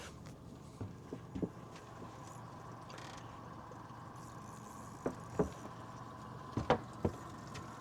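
Scattered light knocks and clicks, a few near the start and a cluster in the second half, over a faint steady tone.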